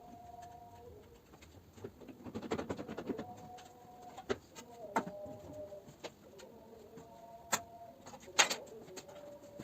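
Short steady-pitched notes, like soft cooing, recur every second or two among scattered sharp clicks and knocks, with a rougher scraping stretch about two seconds in.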